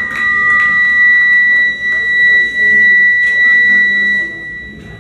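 Electric guitar amp feedback: a steady high-pitched squeal held for about four and a half seconds, with a second, lower tone in the first second and a half, then cutting out near the end.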